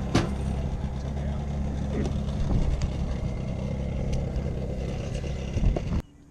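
Vehicle engine running steadily, a low even drone with a few short knocks; it cuts off suddenly near the end.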